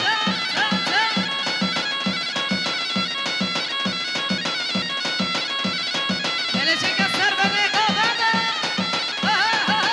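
Amplified live Kurdish folk dance music: an ornamented melody with bending notes over a steady drum beat of about three beats a second.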